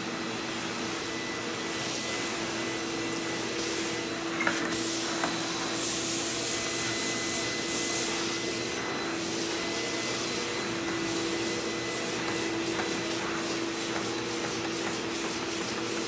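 Hoover backpack vacuum running steadily, a constant motor hum and rush of air as its floor tool is pushed over carpet. There is a light click about four and a half seconds in.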